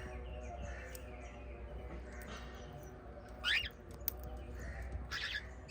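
Small pet parrots chirping and chattering continuously, with a louder sharp call about three and a half seconds in and another near the end.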